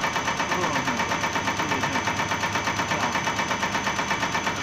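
Diesel injector test bench driving a Cummins electronic unit injector (EUI) on its cam at 500 rpm: a steady, rhythmic mechanical clatter of about eight pulses a second, one injection stroke per turn, over the hum of the bench's drive motor.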